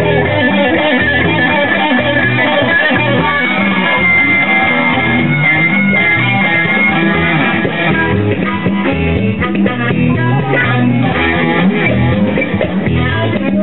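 Instrumental jam on electric guitar, acoustic guitar and harmonica, with the harmonica holding long high notes a few seconds in.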